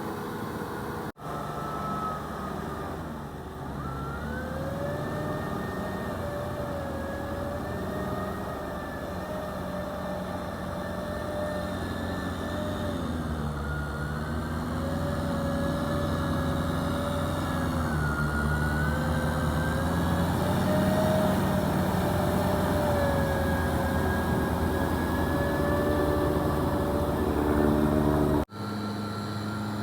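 Kubota M6040SU tractor's four-cylinder diesel engine running under load while ploughing, with a wavering whine that slowly rises and falls above the engine note. The sound grows louder in the second half and drops out sharply for an instant about a second in and again near the end.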